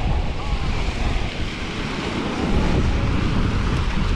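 Wind buffeting the microphone with a steady low rumble, over the wash of sea waves.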